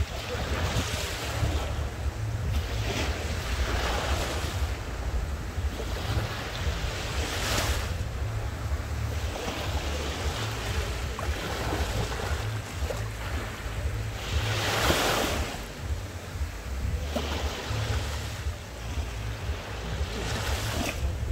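Small sea waves breaking and washing up a sandy beach, surging every few seconds, the biggest about three-quarters of the way through. Wind on the microphone adds a steady low rumble underneath.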